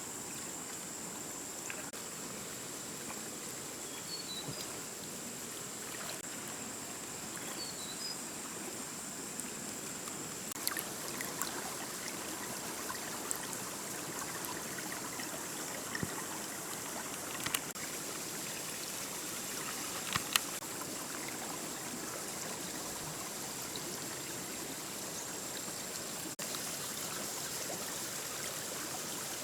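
Steady rush of flowing water with a continuous high-pitched insect drone over it. A few short chirps come early on, and light clicks are scattered through the middle.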